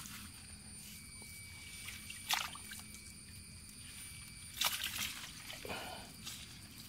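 Rain-swollen pond overflow water running through a shallow channel past a wire-mesh fish trap, a steady trickle, with two sharp short sounds about two and a half and nearly five seconds in as the trap is handled.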